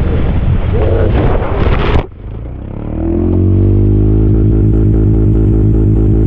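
Motorcycle riding with heavy wind noise on the helmet camera's microphone, cut off abruptly about two seconds in. Then a low, steady droning chord of music swells up and holds.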